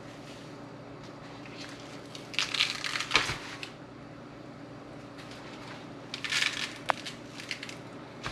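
Seasoning shaken from a plastic shaker jar onto raw steaks: two spells of quick rattling shakes, one about two seconds in with a sharp knock in the middle, the other about six seconds in. A steady low hum runs underneath.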